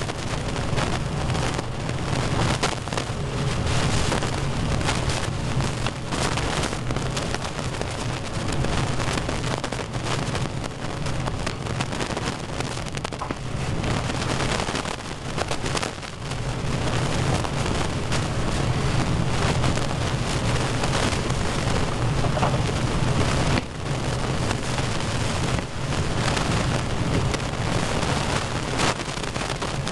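Heavy rain falling steadily during a thunderstorm, over a constant low hum.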